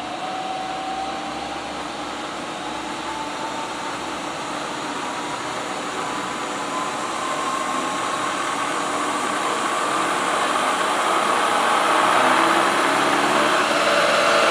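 Spindle of a Chevalier 3 hp vertical milling machine running with no load while its variable-speed drive is turned up: a steady whine that slowly rises in pitch and grows louder.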